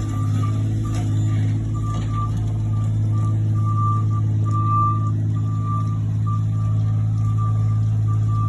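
Heavy diesel work vehicle running steadily with its backup alarm beeping on and off.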